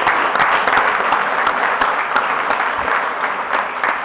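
Banquet audience applauding, a dense steady clapping that starts to fade near the end.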